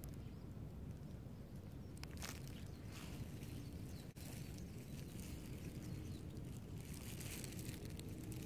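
Outdoor field ambience: a low rumble, like wind on the microphone, with dry grass and mulch rustling and crackling now and then, most about two seconds in and again near the end.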